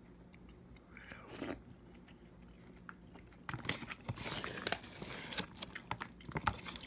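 A metal spoon stirring and scraping wet rice and beans inside a foil-lined rehydrated-meal pouch, with the pouch crinkling. It starts about halfway in, as a run of short clicks and rustles.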